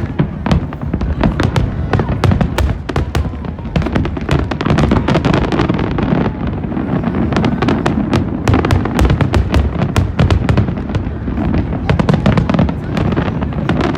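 Aerial fireworks going off in rapid succession: many sharp crackling pops every second over a continuous low rumble of booms.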